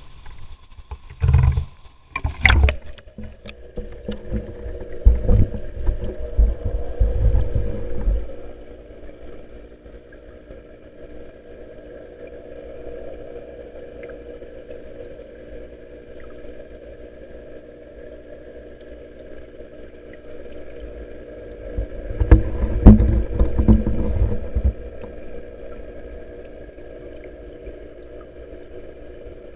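Koi pond waterfall splashing steadily. Heavy low rumbles on the microphone come and go, near the start, from about four to eight seconds in, and again a little past twenty seconds in.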